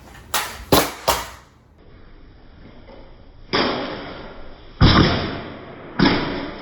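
Three quick sharp knocks, then three heavier thuds about a second apart, each trailing off.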